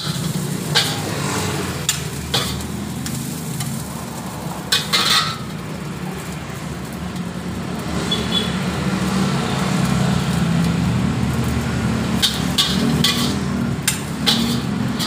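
Metal spatula scraping and clanking against a steel wok while fried rice is stir-fried, with a light sizzle and a steady low rumble underneath. The clanks come in scattered strikes: a few near the start, a pair about five seconds in, and a quick run of them over the last few seconds.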